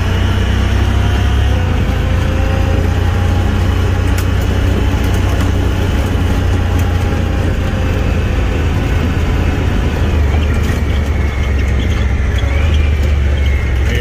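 A vehicle driving along a dirt road, heard from inside the cab: a steady low engine and tyre rumble with wind noise over it.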